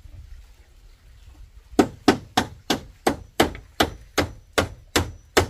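Hammer driving nails: a steady run of sharp blows, about three a second, starting about two seconds in.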